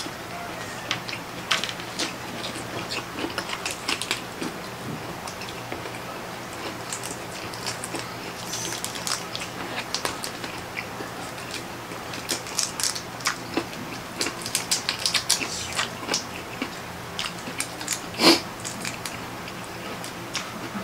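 Close-up eating sounds of people eating shrimp and octopus by hand: wet chewing and smacking mixed with the crackle of shrimp shells being peeled. One louder crack comes near the end.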